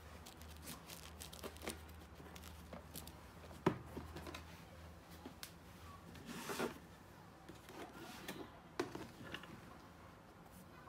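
Sneakers being handled and set down on a cardboard shoebox: scattered light knocks and rubbing, with a sharper knock about four seconds in and another near nine seconds, and a brief rustle between them.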